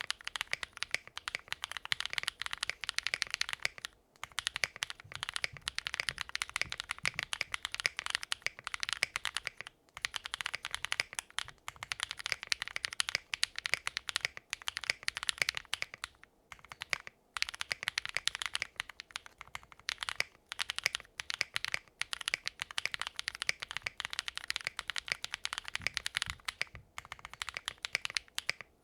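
Fast continuous typing on a QwertyKeys Neo65 gasket-mount mechanical keyboard with factory-lubed Punkshoo x Aflion Runner switches on a POM plate and GMK keycaps: a rapid stream of key clacks, broken by a few short pauses.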